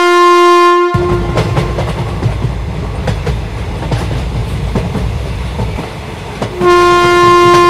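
Train horn sounding and cutting off about a second in, then the rumble and clickety-clack of the train's wheels as it gets under way. A second long horn blast starts near the end.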